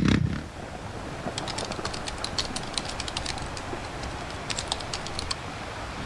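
Two quick runs of keyboard typing clicks, the first about a second and a half in and a shorter one near the end, over a steady hiss of the sea. A tail of music cuts off at the very start.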